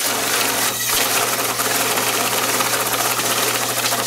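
AccuBanker AB1100 Plus banknote counter running, starting suddenly: a steady motor hum under a rapid flutter of bills riffling through the feed as a stack of notes is counted.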